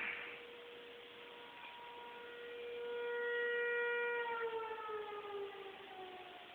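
Warning siren sounding one steady, held tone that swells louder, then winds down, falling in pitch and fading from about four seconds in.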